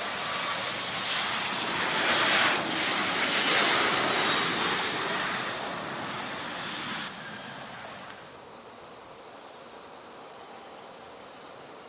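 A jet airliner passing close by: loud rushing jet noise carrying a high whine that slides down in pitch, dying away after about seven or eight seconds.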